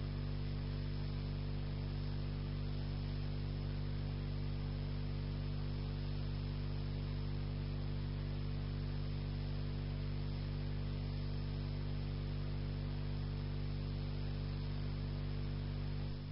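Steady electrical mains hum, a stack of low buzzing tones, with a faint even hiss from the recording.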